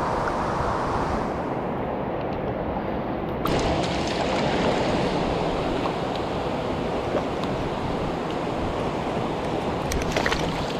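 Steady rushing of a mountain stream, a dense even hiss of flowing water, with a few sharp clicks near the end.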